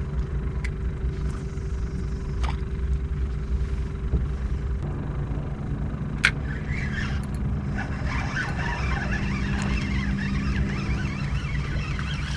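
Steady low drone of a boat motor running, with a single sharp click about six seconds in.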